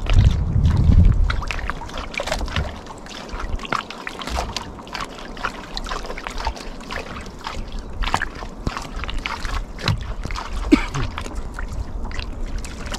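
Water sloshing and splashing against the hull of a small fishing boat, with many small irregular slaps and clicks. A loud low rumble fills the first second or so.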